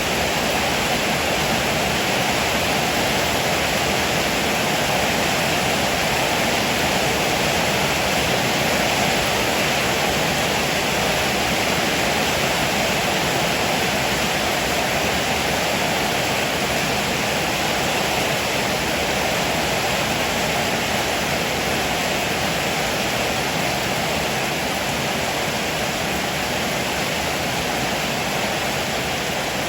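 Heavy rain falling in a steady downpour, an even hiss with no thunderclaps.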